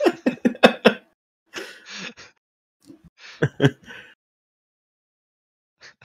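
A person's voice making short non-speech sounds, throat-clearing-like, in a quick run of bursts in the first second and again twice within the next three seconds.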